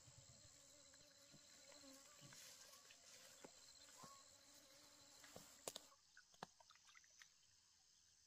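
Faint rural ambience: insects chirring steadily at a high pitch, weakening about six seconds in, with a few soft clicks just before.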